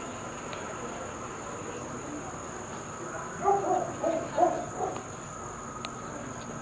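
A steady high-pitched whine over a low, even hiss of room ambience. About halfway through come a few seconds of indistinct, distant voices.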